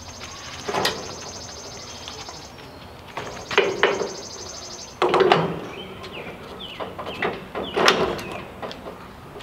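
Clunks and knocks of a gas string trimmer being lifted onto and set into metal Equipment Defender trimmer racks on a trailer: a handful of separate sharp knocks spread over several seconds.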